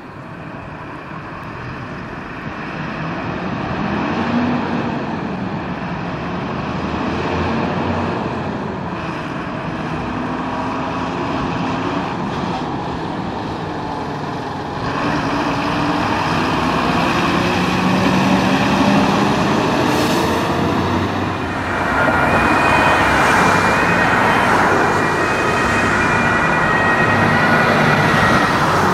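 Fire trucks on an emergency run. First a fire engine's diesel engine revs as it pulls out. Then another fire truck approaches with its two-tone siren sounding over the engine and traffic noise, loudest near the end.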